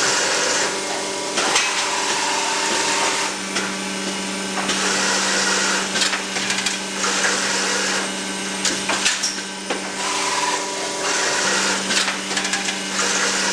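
Filotec CNC scoring machine running: a steady motor hum with five or six spells of harsh cutting noise, each about a second long, as its cutters score a printed circuit board panel, with scattered clicks of the table and clamps.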